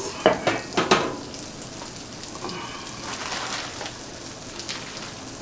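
Sausage patties sizzling steadily in a frying pan, with a couple of sharp clatters in the first second as dishes are handled.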